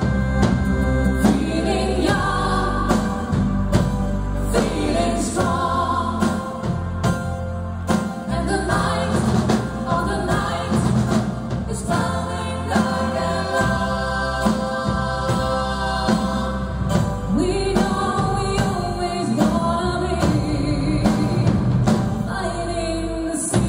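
Live pop band playing: voices singing over electric guitars, bass guitar and a drum kit.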